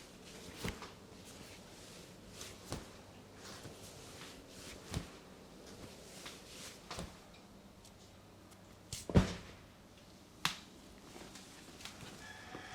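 A series of sharp, separate clicks and knocks from hands working on a person's body during a chiropractic-style adjustment and massage, about one every two seconds. The loudest is a double knock about nine seconds in. A faint steady low hum runs underneath.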